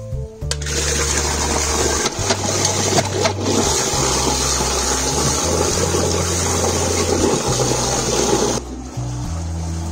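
Milk and broken chocolate pieces churned and frothed in a large pot: a loud, continuous splashing and sloshing that stops suddenly near the end. A softer pouring of milk follows.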